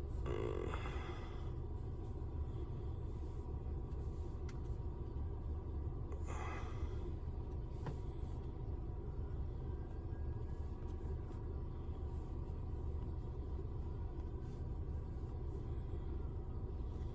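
Steady low hum of a car's cabin with the air conditioning running, as heard from inside the car. Two brief faint noises stand out, about half a second in and about six and a half seconds in.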